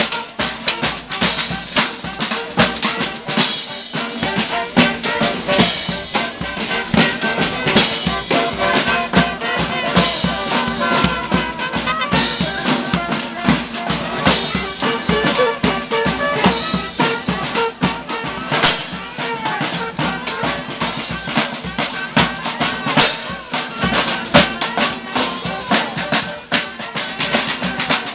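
A brass street band playing, with horns over snare and bass drums keeping a busy beat.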